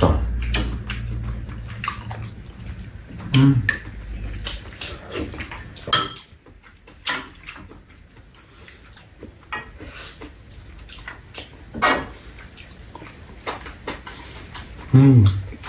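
Metal spoons clinking and scraping against bowls and a metal serving tray during a meal, in scattered short clicks. Two brief low voice sounds come about three seconds in and near the end.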